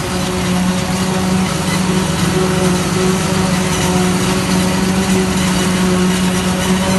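Diesel farm machinery running steadily at a corn harvest: a strong, even engine hum over a broad mechanical rush.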